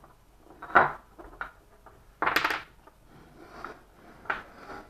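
Wooden toy tool-kit pieces knocking and clattering as they are handled: a sharp knock about a second in, a brief rattling clatter a little past two seconds in, then a few lighter clicks.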